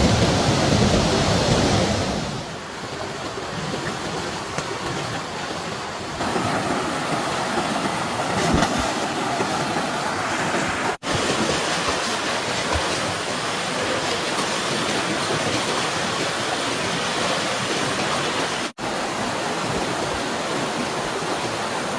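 Stream water rushing steadily, louder for the first couple of seconds, cutting out briefly twice.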